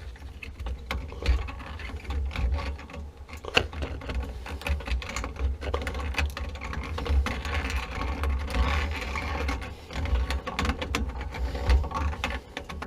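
Hand tools working on water heater plumbing fittings: a run of irregular metallic clicks and knocks over a low rumble.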